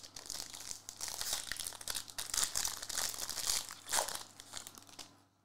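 Foil wrapper of a Prizm trading-card pack crinkling and tearing as it is opened by hand, a dense crackle that dies away near the end.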